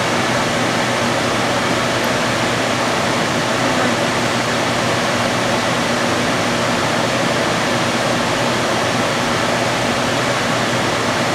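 Lit glassworking bench torch burning with a steady rushing hiss, over a low steady hum.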